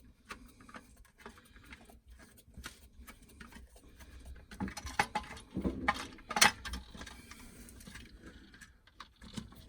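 Small clicks, taps and rattles of a plastic wall power socket and its fixing screws being handled and pushed into place against the wall box, with a louder cluster of knocks about five to six and a half seconds in.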